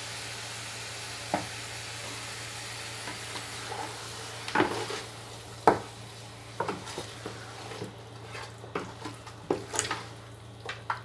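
Marinated chicken pieces sizzling in a hot aluminium pot as a wooden spatula stirs them. From about four seconds in, the spatula knocks and scrapes against the pot again and again. The sizzle eases in the second half.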